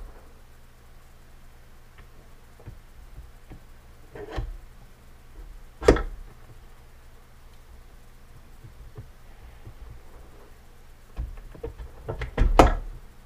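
Knocks and clunks of a Yamaha YZ250 aluminium crankcase half being fitted down over the crankshaft and gearbox shafts onto the other case half: one knock about four seconds in, a sharper one about two seconds later, then a quick run of several knocks near the end. A faint steady hum lies underneath.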